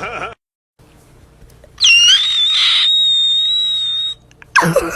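A loud, shrill, high-pitched whistle-like sound that dips sharply, then rises and is held on one steady note for about two seconds before cutting off.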